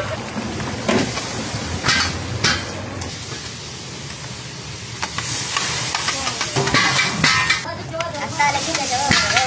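Steady sizzling and hissing from large cauldrons of Kabuli pulao cooking over open fires, broken by a few knocks of big metal bowls against the pots in the first seconds.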